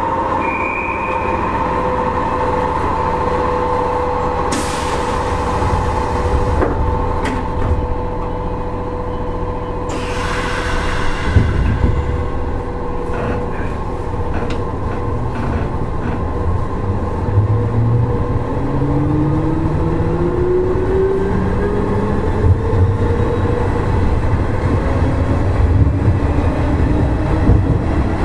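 Nishitetsu 5000 series electric train starting off: two short hisses of air about five and ten seconds in, then the traction motors' hum rises steadily in pitch through the second half as the train gathers speed.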